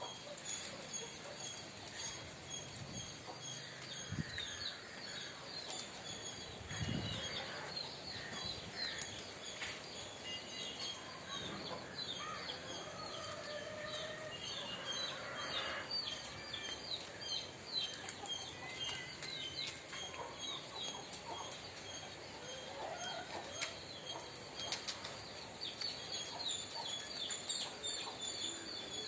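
Small birds chirping rapidly and continuously, with scattered clicks and rustles and a couple of dull thumps about four and seven seconds in.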